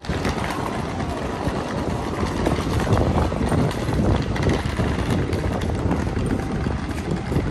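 Wind buffeting the microphone: a loud, uneven noise heaviest in the low end, with no clear tones.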